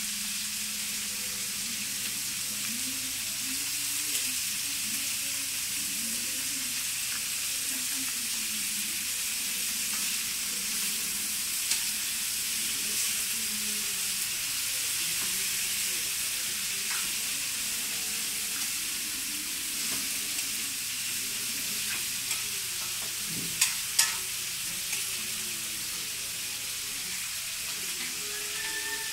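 A cat chewing wet fish scraps from a plastic bowl: crackly, moist eating noises over a steady hiss, with two sharp clicks close together about two-thirds of the way through.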